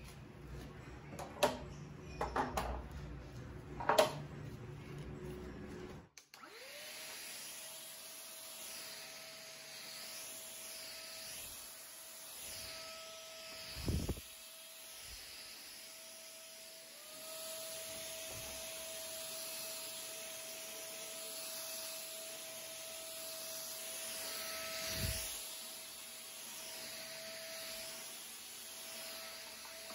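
A few sharp clicks and knocks as a cordless stick vacuum is handled. Then its motor spins up and runs with a steady whine over a rushing hiss as the floor head is pushed across tile, with a dull thump twice.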